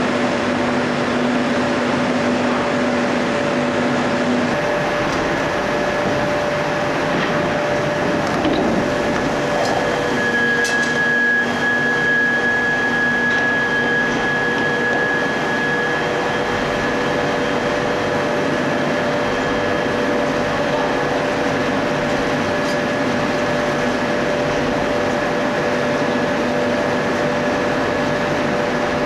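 D51 ring rolling mill running as it rolls a red-hot steel ring: a loud, even mechanical din with steady hum tones. A high whine grows stronger about ten seconds in and fades a few seconds later.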